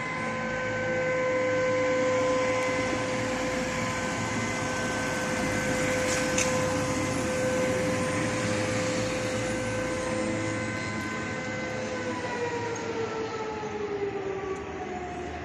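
Public warning siren sounding one long steady tone, then winding down with falling pitch about twelve seconds in. It signals the start of a curfew.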